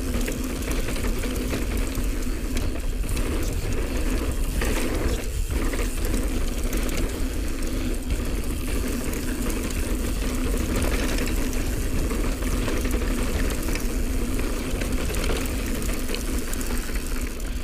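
Mountain bike descending dirt singletrack: tyres rolling over dirt and the bike's drivetrain rattling and ticking, with steady wind buffeting on the rider's camera microphone.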